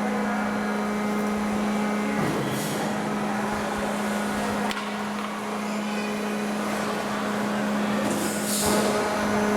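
Steady machine hum at one constant pitch from the F-15 hydraulic-operation demonstration. Short hisses come about two seconds in and again near the end, and a click comes midway.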